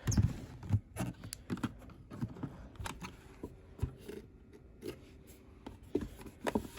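Scattered light clicks, taps and rustles at irregular intervals, the sound of hands handling things close to the microphone.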